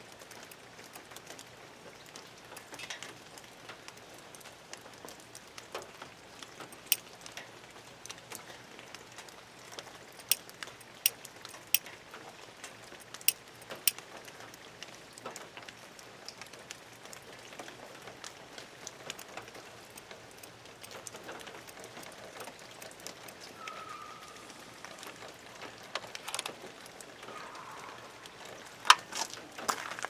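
Faint steady hiss with a scattering of sharp small clicks, several in a cluster in the middle and a few more near the end, as the removed idle air control valve is handled.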